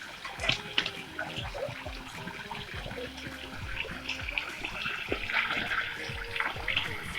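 Rushing, splashing water, with background music playing over it.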